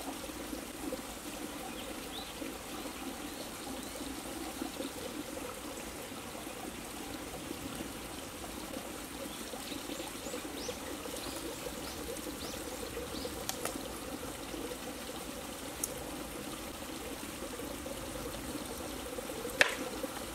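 Steady trickling, flowing water, with faint short high chirps now and then. A single short, sharp sound comes near the end and is the loudest thing heard.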